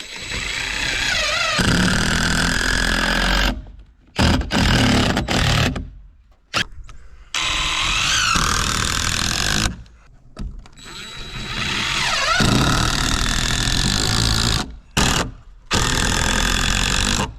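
Power saw cutting framing lumber in several runs of one to three seconds, its motor starting up and slowing between short stops.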